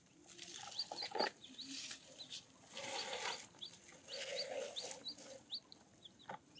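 Young chicks peeping: short high cheeps that slide upward, a few a second. In between come rustling and a few knocks as the plastic toy truck is handled.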